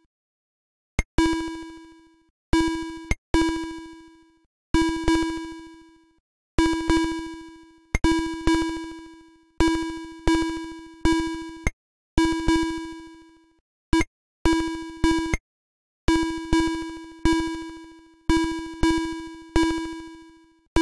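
Atari ST computer sound effect: a hollow, bell-like electronic ding struck over and over at uneven intervals, each one starting sharply and dying away, some cut short by the next. It is the bounce sound of the demo's checkered ball.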